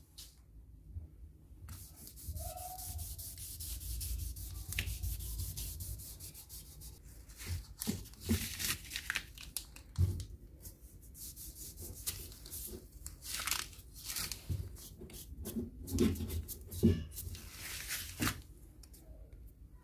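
Hand rubbing finish onto a wooden knife handle against the workbench: a run of irregular short rubbing strokes, with a few light knocks as the knife shifts on the bench.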